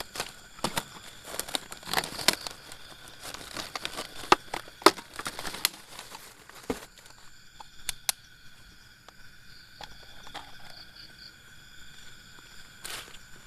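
Gear being handled and set out: crinkling plastic, rustling and sharp clicks and knocks, dense through the first half and the loudest about four to five seconds in. Then only a few scattered clicks over a steady high thin drone.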